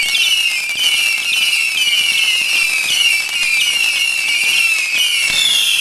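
Whistling firework giving a shrill, continuous whistle that dips in pitch about twice a second, over faint crackling.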